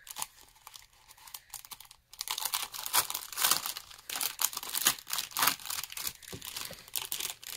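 Packaging crinkling and rustling as it is handled and opened to get at a handmade memory deck, in quick irregular crackles that start about two seconds in.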